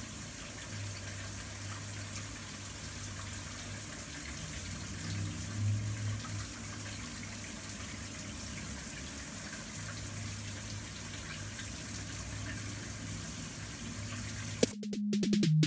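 Steady hiss of running water, as from a tap. About a second before the end it cuts out with a click, and electronic music starts.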